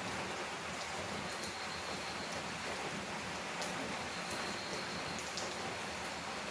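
Heavy rain falling on a tin roof and leaves: a steady dense hiss with scattered sharp drops.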